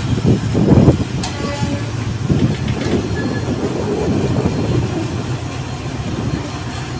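Indian Railways sleeper-class passenger coaches rolling past on the track. Their wheels rumble, with a few knocks in the first second or so where the sound is loudest, then settle into a steadier rumble that eases slightly.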